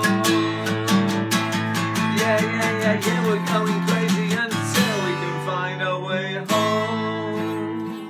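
Acoustic guitar strummed steadily while a man sings. About halfway through, the strumming thins to a couple of single chords left to ring and fade.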